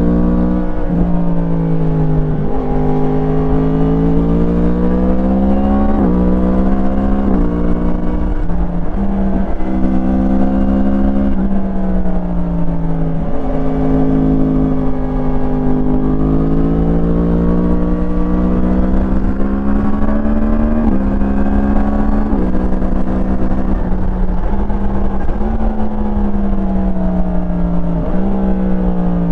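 A 2017 Yamaha MT-10's crossplane inline-four, breathing through an Akrapovič slip-on exhaust, under way on a twisty road. The engine revs climb and fall through the corners, and the pitch steps sharply again and again as the gears change. A steady low rush of wind and road noise runs underneath.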